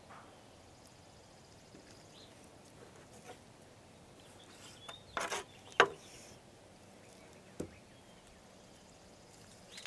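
A paring knife working on a wooden cutting board while raw chicken drumsticks are trimmed: a brief scrape, then a sharp knock of the blade on the board a little past halfway, and a lighter knock soon after, over faint background noise.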